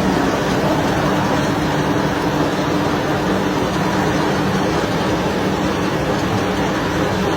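Tractor engine running at a steady speed, with a constant low hum and mechanical noise that does not change.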